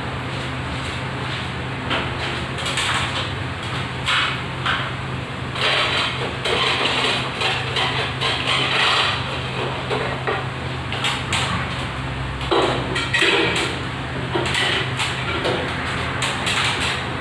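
Irregular metallic knocks, clicks and rattles as an aluminium stepladder is climbed and a ceiling fluorescent tube fixture is handled, over a steady low hum.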